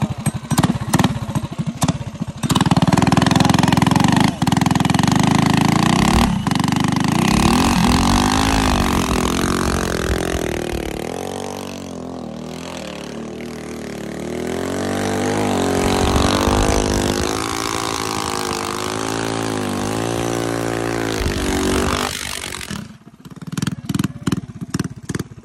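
Minibike engine revved hard through a burnout, its pitch swinging up and down as the rear tyre spins, then dropping suddenly to a lumpy idle near the end.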